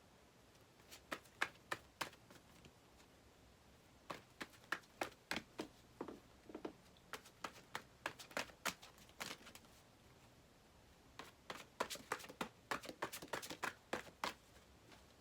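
A deck of oracle cards being shuffled by hand: runs of quick clicks and taps as the cards knock together, in three spells with short pauses between.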